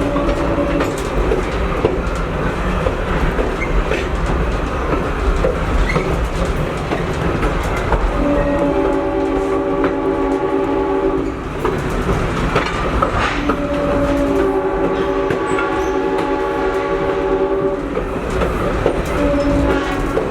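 Diesel locomotive horn sounding a multi-note chord in long blasts over the steady rumble and wheel clatter of a moving train. The end of one blast fades about a second in, then two long blasts follow in the second half, and another starts near the end.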